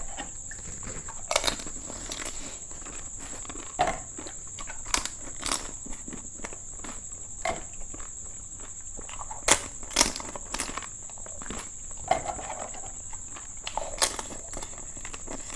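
Crisp golgappa (pani puri) shells being handled and bitten: scattered sharp crunches and clicks every second or two, over a steady high-pitched whine.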